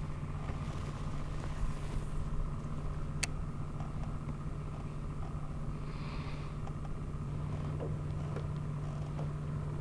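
Electric bow-mount trolling motor running with a steady low hum, with a sharp click about three seconds in and a few faint ticks.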